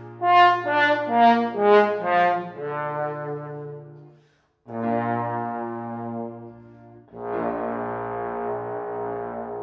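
Trombone with piano accompaniment: a quick run of short, accented notes, then longer held notes, with a brief break about four seconds in.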